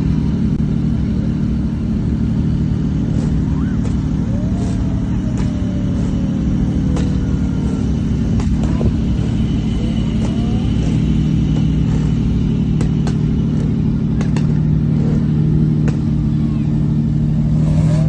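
Engines of several sports cars running as they crawl past in a line: a steady low rumble that holds even throughout.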